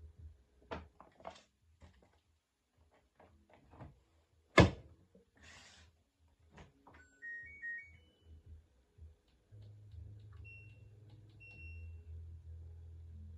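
A washing machine's door is shut with one loud thunk after a few small clicks. Then comes a quick series of stepped electronic beeps from its control panel. The machine starts up with a steady low hum, beeping a couple more times.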